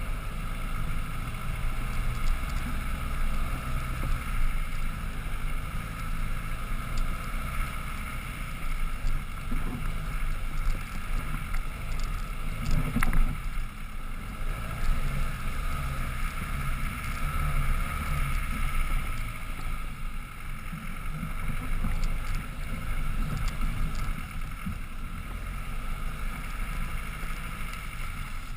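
Land Rover Defender 110 engine running at low revs while the vehicle crawls up a rough dirt trail, heard from a roof mount with wind on the microphone. A single knock about halfway through.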